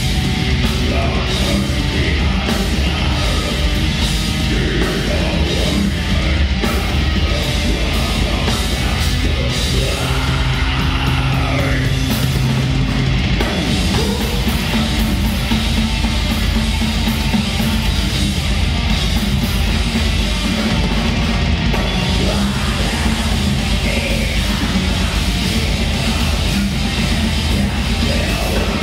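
Heavy metal band playing live through a PA: distorted electric guitars, bass and drums, with a singer's shouted vocals at times.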